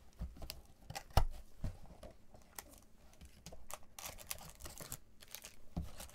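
Cardboard trading-card hobby box being opened and its foil card packs handled: a string of light clicks and taps with a sharp knock about a second in, and crinkling of pack wrappers around four seconds in.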